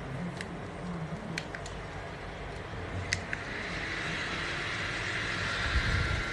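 Small battery neck fan running with a steady airy hiss, with a few sharp clicks; after two clicks about three seconds in the hiss grows stronger.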